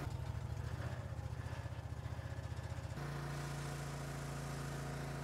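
Engine of a sewer jetter running under remote throttle-up, with its water pump on. The note pulses rapidly for about three seconds, then shifts and settles into a steady, even run at the higher speed.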